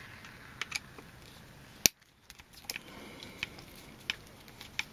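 Faint scattered clicks and ticks of a metal hex driver turning small screws out of an RC crawler's panhard mount, with one sharp click about two seconds in.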